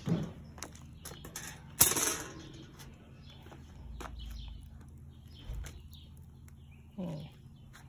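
Metal parts of a charcoal kettle grill knocking as they are handled. There are a few small knocks and one sharp, loud clank about two seconds in that rings briefly.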